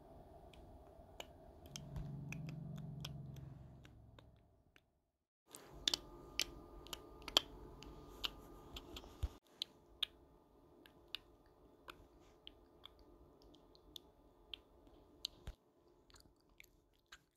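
Scattered light clicks and taps, a few to a second, with a low hum that comes in about two seconds in and fades out a couple of seconds later.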